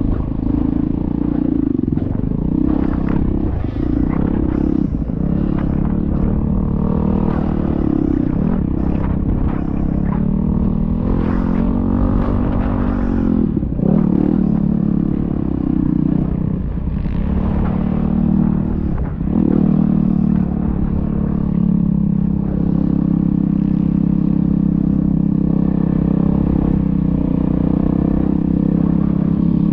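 Motocross dirt bike engine revving as the bike rides, its pitch rising and falling with the throttle and dropping sharply several times. It holds a steadier pitch through the last several seconds.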